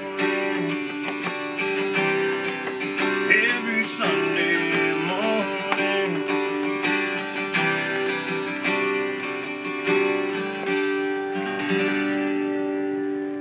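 Acoustic guitar strumming the closing bars of a country ballad, ending on a final chord that is left ringing about twelve seconds in.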